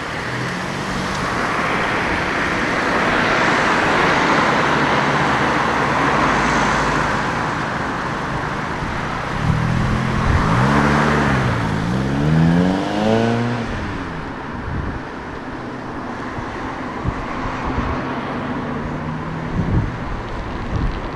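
Volkswagen Golf engine revved in about four quick blips around the middle, each one a rise and fall in pitch, after several seconds of passing-traffic noise. Then a quieter stretch with the engine running low, and a few short sharp pops near the end.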